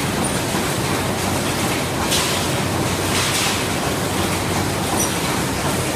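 Fuzhou Jinxiang ham sausage machine running: a loud, steady mechanical clatter, with short hisses about two seconds in and again about a second later.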